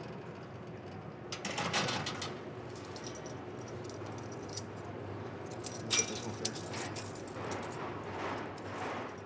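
Metal jangling and clinking in several bursts over a steady low hum, loudest about two seconds in and again around six seconds in.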